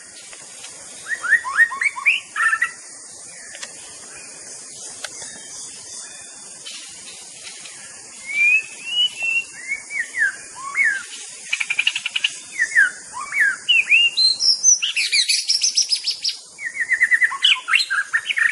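White-rumped shama (murai batu) singing. There is a short burst of whistled phrases near the start, then a pause of a few seconds with only a steady hiss. From about eight seconds in comes a long, varied run of slurred whistles, rapid trills and repeated notes.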